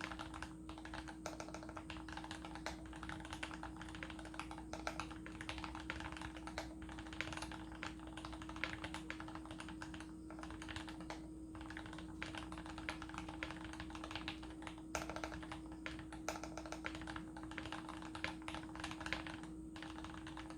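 Continuous typing on a custom mechanical keyboard with an aluminium plate, lubed Tealios linear switches in Cherry top housings, and PBT keycaps. The key presses come as quick, irregular clicks, with a steady low hum underneath.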